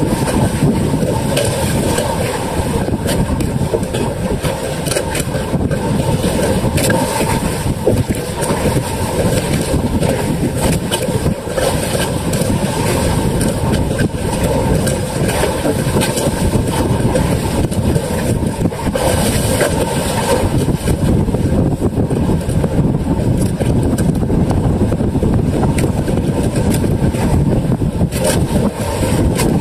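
Engine of a motorized outrigger boat running steadily under way, mixed with strong wind buffeting the microphone and the rush of choppy water.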